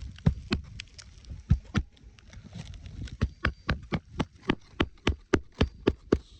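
Hammer driving a roofing nail through an asphalt shingle: a few separate blows, then a quick, even run of about four strikes a second that stops near the end as the nail seats.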